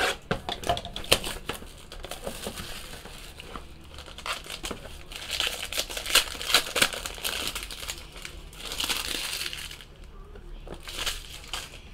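A foil-wrapped trading card pack being torn open and crinkled in the hands, with sharp clicks and taps of the cardboard box being handled in the first couple of seconds.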